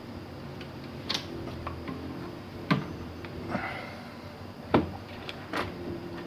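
A few sharp clicks and knocks, about four spread over the stretch, from things being handled on a workbench, over a steady low hum.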